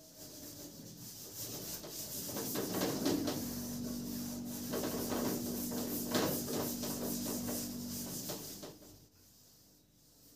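Rubbing and scraping strokes on a writing surface for about eight seconds, with a faint steady hum partway through.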